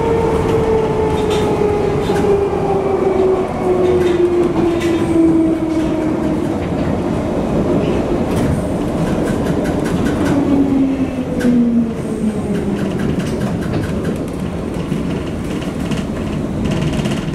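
Bakerloo line tube train heard from inside the carriage while running: a steady rumble of wheels on rail with scattered clicks over the track, and a motor whine that falls steadily in pitch over about twelve seconds as the train slows.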